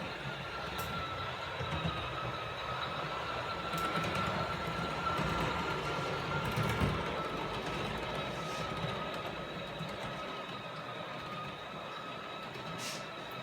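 OO gauge model train running along the track: a steady electric motor whine over the rumble of wheels on rails, growing louder toward the middle and easing off again as it passes.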